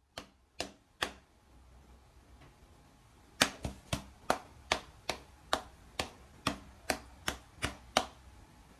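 Sharp taps of a cat's paws striking a glass pane as it bats at a hand on the other side. Three taps come first, then after a short pause a quick run of about a dozen, two or three a second.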